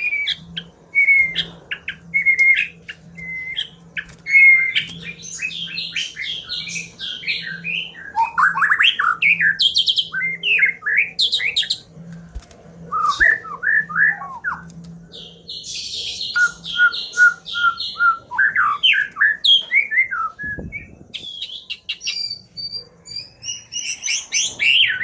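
White-rumped shama singing without pause: a varied string of whistled phrases, runs of repeated notes and fast rattling trills.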